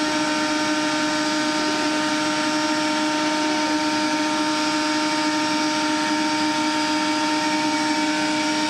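Vacuum cleaner running steadily, its motor giving a constant, even-pitched hum over a rush of air.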